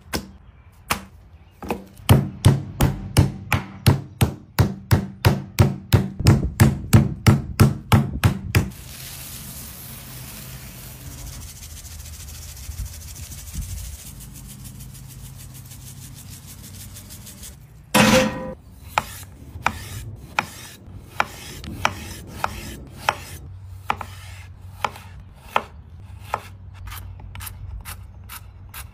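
Kitchen prep on a board: a fast, even run of knocks for several seconds, then a soft steady hiss. Then a loud knock and a slower series of knife chops on a cutting board as food is diced.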